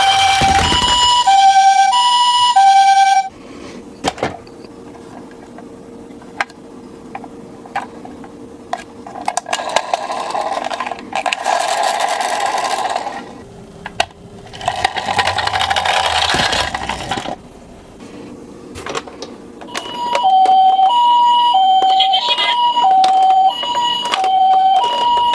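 Toy ambulance's electronic two-tone hi-lo siren, Japanese ambulance style, alternating two notes about every half second. It cuts off about 3 seconds in and starts again near the end. In between come scattered clicks and two stretches of rolling rattle from the toy cars running down the slope.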